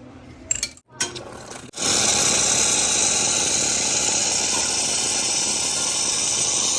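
A couple of metal clinks, then about two seconds in hot water starts pouring steadily into a jug holding the espresso machine's metal group-head filters, a loud even hiss.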